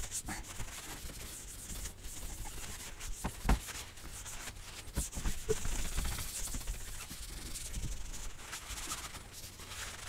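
A cloth rubbing and wiping over a laptop's screen in quick back-and-forth strokes, with scattered light taps and one louder knock about three and a half seconds in.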